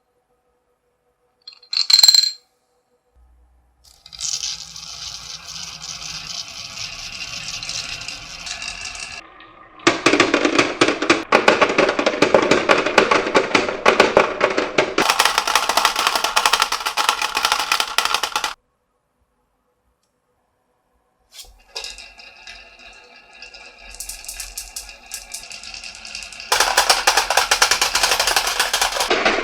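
Many marbles rolling and clattering down a wooden marble-run track: dense rapid clicking in several long runs, broken by a few seconds of silence. About two seconds in there is a single bright, ringing clink.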